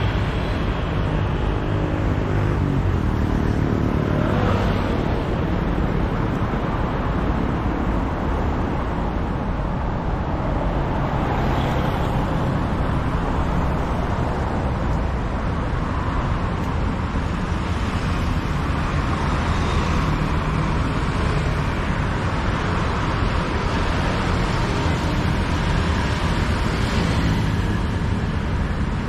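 Steady road traffic on a busy city street, with vehicles swelling past every several seconds.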